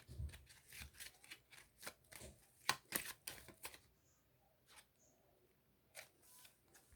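Deck of reading cards being shuffled and handled: a quick run of card snaps and clicks for about four seconds, then a few single clicks.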